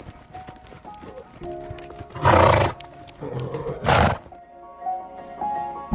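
A horse gives two loud, breathy blasts, the first about two seconds in and a shorter one about four seconds in, over soft background music.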